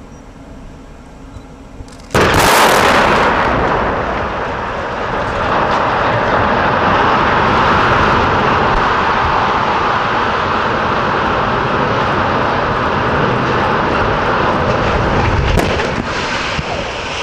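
Explosive demolition charges go off in one sudden, loud blast about two seconds in, felling a boiler smokestack; a long, steady rumble follows as the stack comes down, with one sharp crack near the end.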